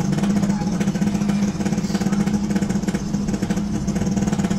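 A motor running steadily, with a constant hum and a rapid, even pulse.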